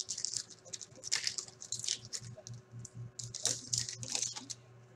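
Hockey card pack wrapper crinkling and tearing in the hands as the pack is pulled open, in short irregular crackles.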